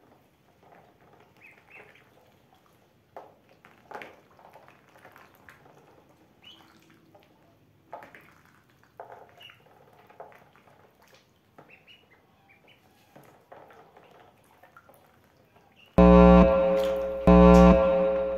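Ducklings peeping faintly, with small splashes as they paddle in a shallow basin of water. About sixteen seconds in, two loud tonal blasts follow one right after the other and drown them out.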